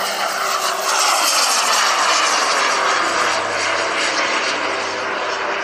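Model L-39 Albatros jets with JetCat P-180Rxi turbines passing low in a flypast. The loud turbine whine and rush swell at the start, then the pitch slides down as they go by.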